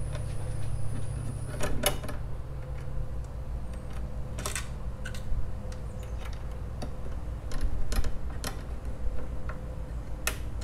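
Irregular light clicks and taps of small metal hardware being handled, as set screws are driven into a soundbar speaker box with an Allen wrench, with a few louder knocks, over a low steady hum.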